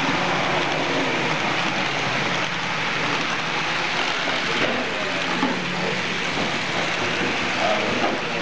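Model train of an SBB Re 6/6 electric locomotive and passenger coaches running past on the layout's track: a steady rushing noise of the wheels rolling on the rails.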